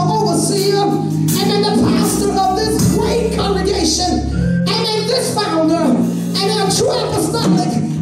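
A woman singing a church song into a hand-held microphone, over instrumental accompaniment with long held low notes that change every second or two.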